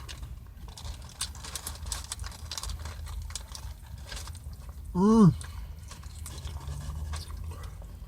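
A person chewing food close to the microphone, with scattered small crisp clicks over a low steady hum.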